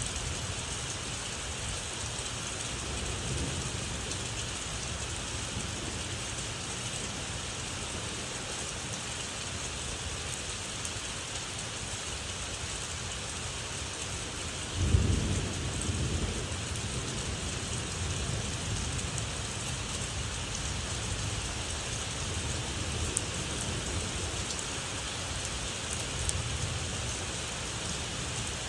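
Steady rain with rolling thunder: a sharp, loud thunderclap about halfway through that rumbles away over a couple of seconds, and fainter low rumbles at other moments.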